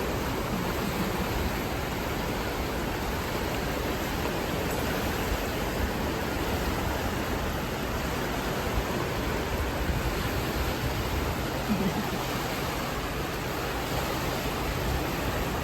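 River water rushing steadily through the gaps of a needle dam weir, a constant even rush with no breaks.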